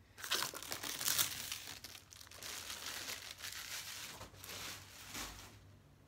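Clear plastic wrapping crinkling and rustling as it is pulled off a new vacuum cleaner body. It is loudest about a second in and stops shortly before the end.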